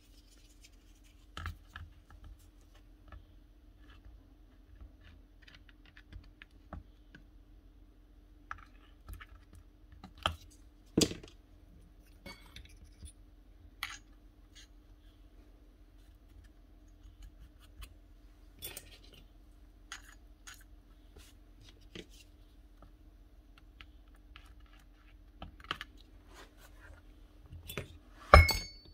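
Metal parts of a rotary hammer clicking, scraping and clinking as they are handled and fitted together on a workbench. Scattered light knocks, a sharper knock about 11 seconds in, and a louder ringing metal clank near the end, over a faint steady hum.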